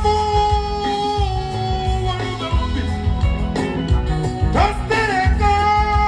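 A live band playing during a sound check. A steady bass and drum beat runs under a melodic lead that holds a long note at the start and again near the end.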